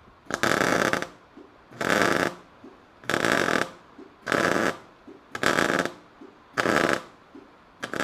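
MIG wire-feed welder laying a bridge tack across a gap on a steel frame, with the machine set hot: seven short bursts of arc crackle, each under a second, about one every 1.2 seconds, with the arc stopped in between.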